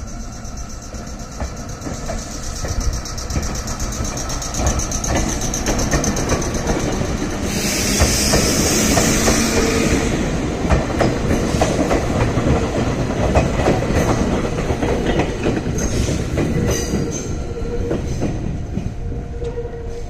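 Red Meitetsu electric train running past through the level crossing, its wheels clacking in quick succession over the rail joints, while the crossing's warning signal rings steadily. A loud hiss lasts a couple of seconds about eight seconds in. The crossing signal stops shortly before the barriers lift.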